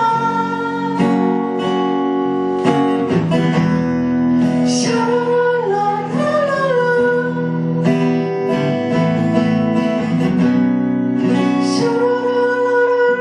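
Live band music: a strummed acoustic guitar under a held, sliding sung melody with no clear lyrics.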